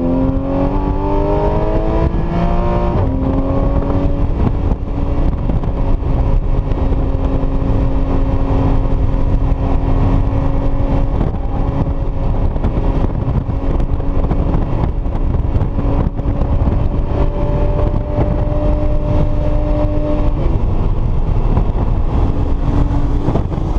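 Porsche Cayman S engine heard from inside the cabin at track speed: it revs up, drops sharply in pitch about three seconds in as at a gear change, then holds a nearly steady note, creeping up slightly before falling again near the end. Steady road and wind noise sits underneath.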